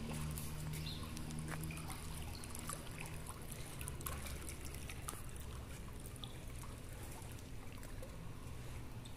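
Water trickling and splashing in a swimming pool, with scattered small ticks over a low steady hum.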